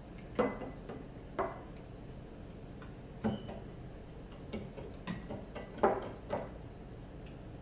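Aluminium beer can rim knocking and clinking against small ceramic bowls as it is dipped upside down into chamoy and then tajín, a handful of light, irregular taps.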